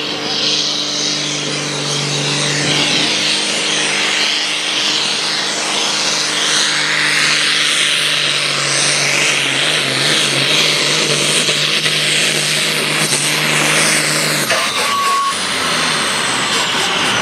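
Diesel engine of a Farm Stock pulling tractor running flat out under heavy load as it drags the weight-transfer sled: a steady, loud engine note under a dense exhaust roar. Near the end the steady note stops and a high whine falls slowly in pitch.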